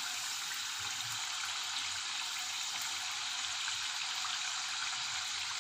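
Hot oil sizzling steadily around kai murukku (rice-flour spirals) deep-frying in a pan, an even hissing crackle with no pauses. This is the vigorous early stage of frying, soon after the murukku went in; the oil goes quieter once they are cooked through.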